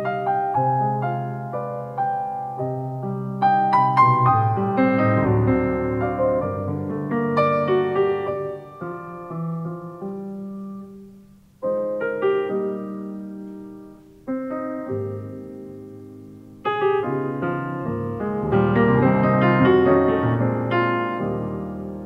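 Solo piano played in a live concert performance. Chords ring out and die away, fresh chords are struck about halfway through and again a few seconds later, and the playing grows fuller and louder over the last few seconds.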